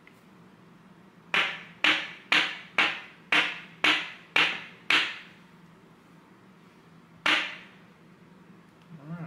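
A run of eight sharp knocks or taps about half a second apart, then a single knock after a pause of about two seconds.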